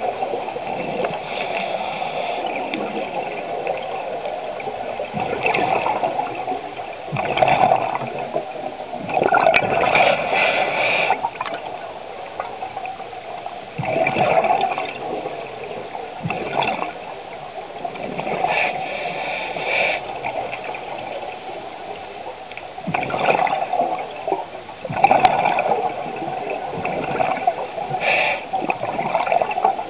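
Scuba diver breathing through a regulator underwater: bursts of exhaled bubbles every few seconds over a steady underwater rush.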